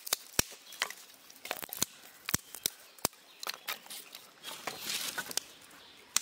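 Dry sticks being laid across stones and gravel to build a fire: a string of sharp, irregular wooden clicks and knocks, with a short stretch of rustling about five seconds in.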